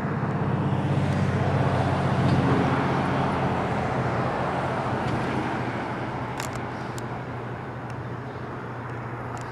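Road traffic: a motor vehicle's engine and tyre noise that swells to its loudest about two seconds in and then slowly fades as it passes.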